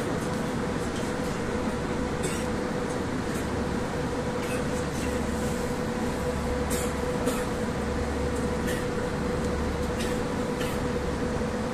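Moskva-2024 metro train heard from inside the car as it pulls out of a station: a steady electrical hum over running rumble. The deep rumble strengthens partway through, and a few faint clicks come through.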